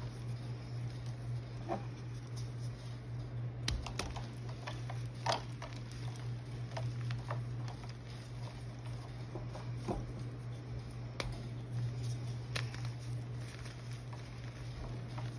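Blue reformed gym chalk crumbling and being rubbed to powder between fingers: scattered soft crackles and clicks, with a few sharper cracks as chunks break. A steady low hum runs underneath.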